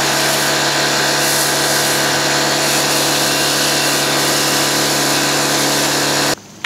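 Compact pressure washer running under load while spraying foam through a foam-cannon wand: a steady motor and pump drone with a fixed pitch under loud spray hiss. It cuts off suddenly near the end, when the trigger is released.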